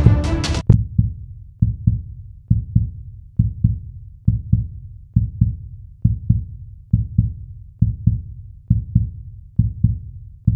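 Music cuts off under a second in. It gives way to a slow heartbeat-like pulse: a low double thump, 'lub-dub', repeating a little faster than once a second.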